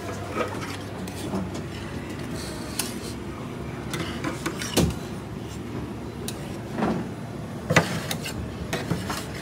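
Metal spatulas scraping and tapping on a frozen cold slab as ice cream is worked into a waffle bowl, with a few sharp clinks scattered through, over a steady background hum.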